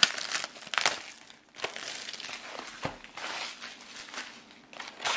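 Clear plastic shrink-wrap crinkling in irregular crackles as it is pulled off a cardboard trading-card booster box, with a short pause about a second and a half in.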